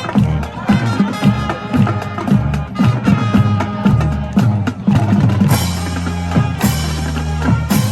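Instrumental music with drums and percussion keeping a steady beat, and long held low notes through the second half.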